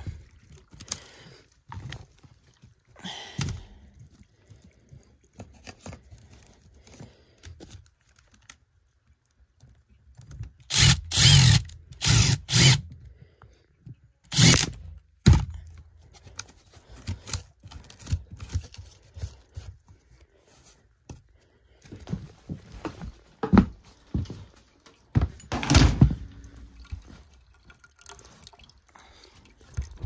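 Condensate water draining and dripping through a just-unclogged PVC drain line, the sign that the blockage holding water in the overflow pan has cleared. Handling knocks from the pipe fittings come and go, with several loud, short bursts of noise: three in a row about halfway through and another near the end.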